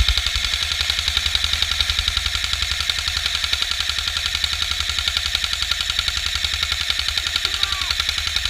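Airsoft gun firing full-auto in one long, unbroken burst: a rapid, steady stream of shots.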